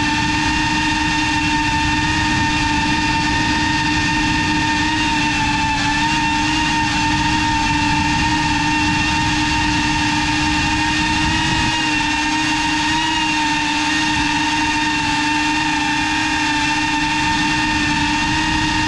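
GEPRC CineLog35 cinewhoop FPV drone's brushless motors and propellers whining steadily, recorded from the GoPro on board, the pitch wavering slightly as the throttle changes.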